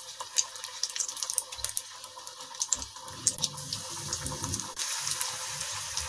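Potato cubes coated in semolina deep-frying in hot oil in an aluminium kadai: a steady sizzle with many small crackles and pops. It grows louder after the middle, as more pieces are dropped into the oil.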